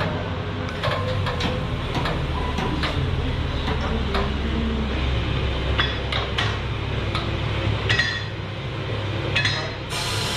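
Repair-shop work noise: scattered metal clinks and knocks from tools and parts, over a steady low hum.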